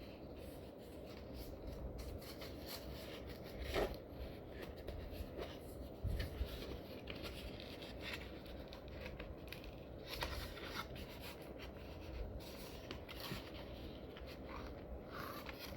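Faint rubbing and scraping of toy packaging being handled as the box is searched and pulled apart, with a few light knocks and clicks.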